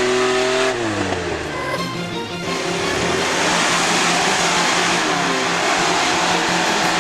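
Off-road 4x4 engine revving high, its pitch dropping about a second in, then running on under load in a dense wash of noise.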